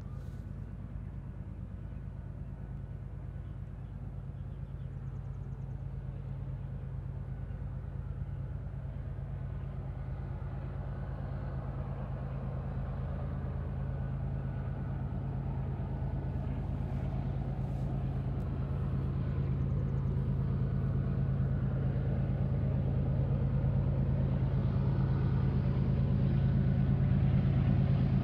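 Diesel freight locomotives working under load, a steady low engine drone that grows gradually louder as the train approaches.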